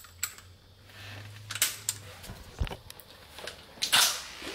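Handling noise from a cordless drill fitted with a long extension bit: scattered light clicks and knocks as it is lined up on a bracket screw under a sink cabinet, with a louder brushing knock near the end.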